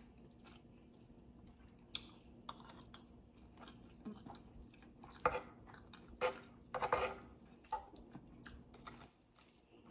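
Close-miked chewing of a mouthful of rice, beans and stewed beef, with wet mouth clicks and the scrape of a metal spoon scooping rice on the plate. The sounds come as scattered short clicks and smacks, a few clustered past the middle.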